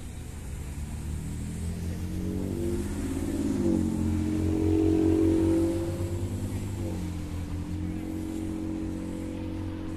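A motor vehicle engine passing by: it grows louder with its pitch rising about three and a half seconds in, is loudest around five seconds, then drops in pitch and fades back to a steady hum.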